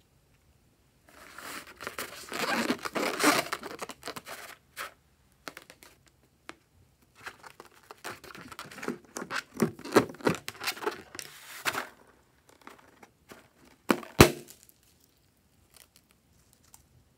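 Hands handling a filled rubber balloon over a tray of foamy slime: crinkling, crackling noise in two long stretches, then a couple of sharp clicks near the end.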